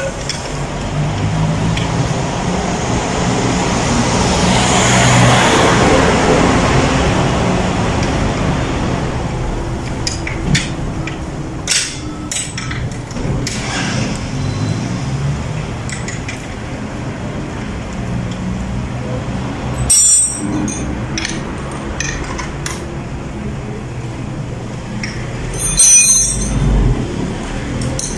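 Urban street ambience: a steady bed of traffic noise with a vehicle swelling past about five seconds in, and scattered clinks and knocks through the middle.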